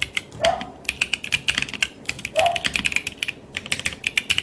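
Typing on a Bakeneko 65 mechanical keyboard with Neapolitan Ice Cream switches and GMK Hammerhead keycaps: fast bursts of key clacks with brief pauses, and a couple of deeper strokes among them.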